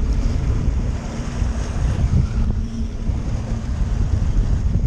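Wind buffeting the microphone over the rush of water from a moving boat's wake, with a faint steady hum coming and going underneath.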